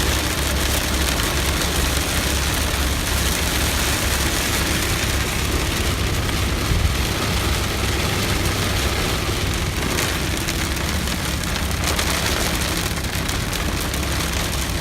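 Heavy rain falling, a steady loud hiss with a deep rumble underneath.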